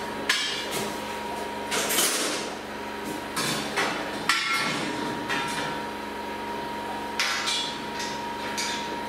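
Stainless-steel cheesemaking equipment clanking and rattling as it is handled: several sharp metal knocks, with a longer scraping rattle about two seconds in. A steady hum runs underneath.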